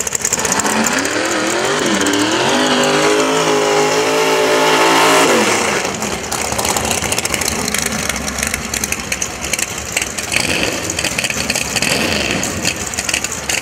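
Drag car engine at full throttle on a pass, its pitch climbing steadily for about five seconds, with a brief dip about two seconds in, then cutting off suddenly. A rough, noisy din follows.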